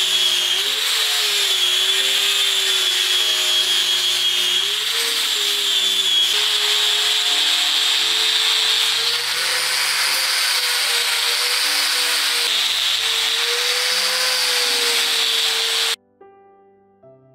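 Angle grinder with a fibre sanding disc grinding down a rubber recoil pad on a wooden rifle stock, its motor pitch wavering as the disc is pressed into the work. It runs steadily, then cuts off suddenly near the end.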